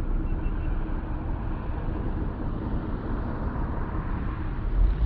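A car running, with a steady low rumble of engine and road noise.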